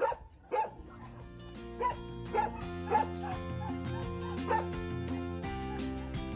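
Background music of sustained chords, with a puppy's short, repeated high whimpers and yips over it.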